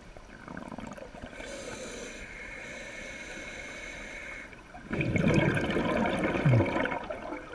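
Scuba breathing heard underwater through the diver's regulator: a steady hiss of an inhale through the demand valve, then exhaled bubbles gurgling loudly for about two seconds, starting about five seconds in.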